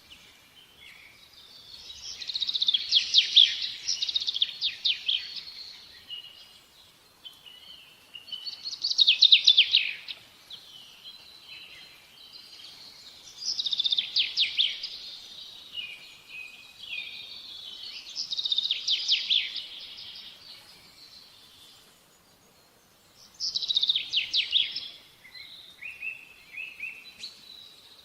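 A bird singing: short, high, rapidly trilled phrases repeated about every four to five seconds, six times over, with quiet gaps between.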